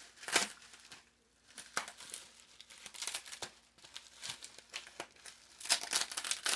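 Packaging being handled and crinkled as a box of toy cars is unpacked: irregular crackly rustles in bursts, loudest shortly after the start and again near the end.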